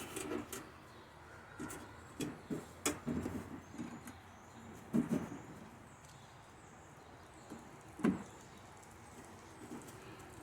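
Scattered small clicks and taps of metal parts being worked by hand as a retaining clip is pressed onto the slotted end of a window-regulator spindle inside a car door. The loudest knocks come about five and eight seconds in.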